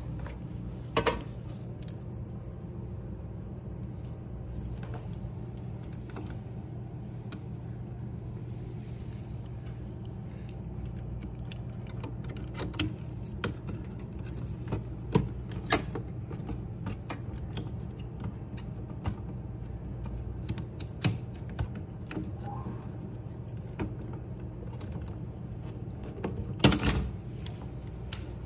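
Scattered clicks, taps and knocks of small hard parts being handled, with a louder clatter about a second in and the loudest knock near the end, over a steady low hum.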